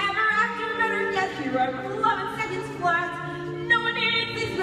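A girl singing a song on stage with musical accompaniment, with long held notes that change pitch every half second or so.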